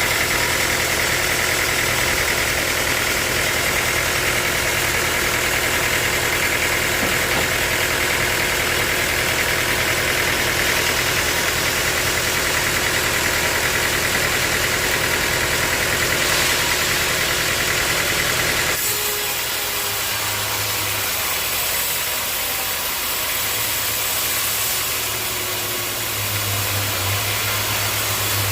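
Sawmill machinery running steadily: an engine-like drone with a steady high whine. About two-thirds of the way through the sound changes abruptly, the deep hum dropping away and the whole getting a little quieter.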